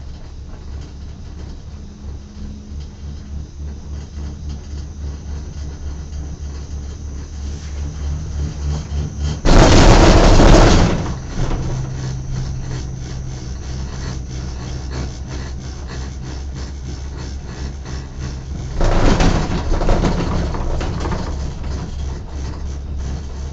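Cable car gondola cabin riding uphill: a steady low rumble with a fast pulsing beat. Twice, about nine seconds apart, a loud rushing rumble swells over it for a second or two.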